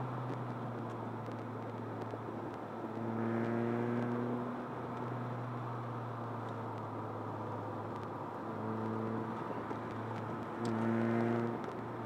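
Opel Corsa B driving, heard from inside the cabin: a steady low engine hum over road noise, with the engine drone swelling louder for a second or so about three seconds in, again near eight and a half seconds, and once more near the end.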